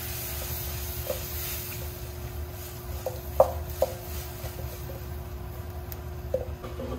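Wok of prawns cooking over a lit gas burner: a steady low hum with a handful of light knocks of pan and utensil, the loudest about three and a half seconds in.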